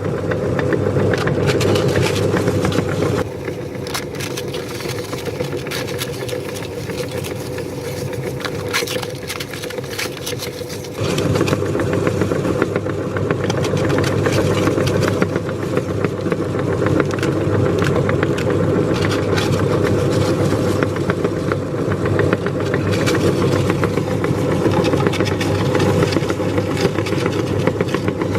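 Electric meat grinder running steadily, with many sharp crackling clicks over its motor hum as it grinds pani puri shells. It runs a little quieter from about three seconds in until about eleven seconds, then picks up again.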